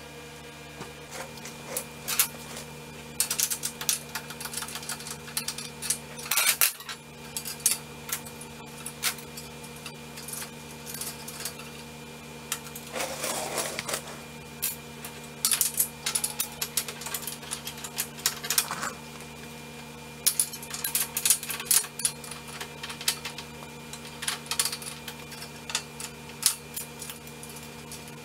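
Steel wrenches and bolts clinking and clicking irregularly against steel as the runway of a four-post car lift is bolted to its crossmember. A brief scraping comes about halfway through, and a steady hum runs underneath.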